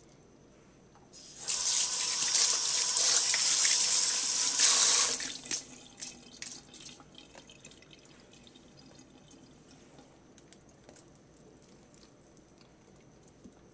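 Kitchen tap running for about four seconds onto raw steaks in a metal colander in the sink, then shut off, leaving scattered drips and small clinks as the meat is handled.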